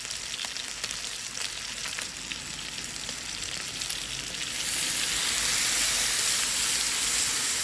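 Chicken adobo sizzling and crackling in a pan, turning into a louder, steady hiss about four and a half seconds in, then cutting off suddenly.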